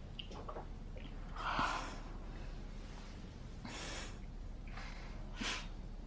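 A woman's soft breaths, three short ones, the loudest about a second and a half in.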